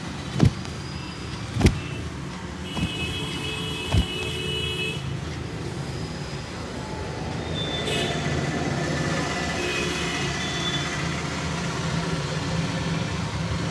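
Street traffic noise, a steady low rumble, broken by four sharp snaps in the first four seconds.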